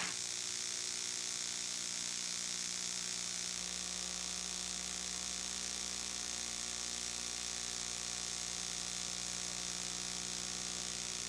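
Steady electrical hum with many evenly spaced overtones over a high hiss: the background buzz of an old off-air videotape recording, with no programme sound.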